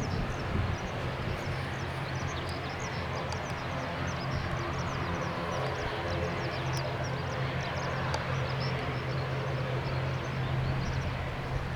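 Jet airliner engines running steadily at the airport: a constant low hum under a broad rushing noise.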